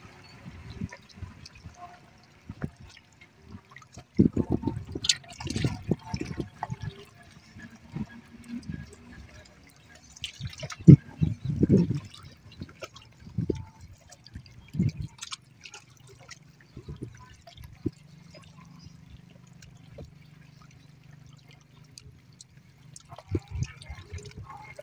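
Small sea waves lapping and splashing at the shore in irregular bursts, the biggest splash about halfway through. A low steady hum comes in over the second half.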